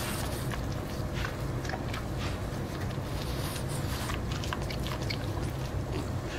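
A French bulldog biting and chewing kernels off a cob of corn held out to it: irregular crunching clicks throughout, over a steady low hum.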